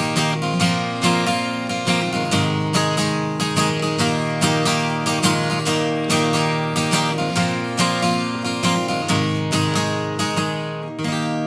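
Acoustic guitar strumming the song's closing chords in a steady rhythm of about two to three strokes a second, ending on a last chord struck near the end and left to ring.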